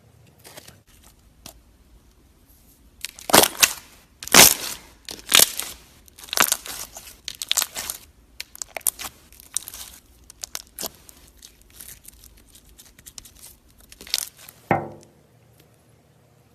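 Slime being squeezed and pulled apart, a run of irregular crackling, tearing pops from trapped air, ending near the end in one short falling squelch.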